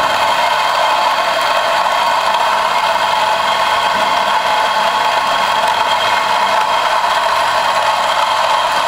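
ECM C-Manuale 54 electric coffee grinder running steadily, its burrs grinding espresso beans straight into a portafilter.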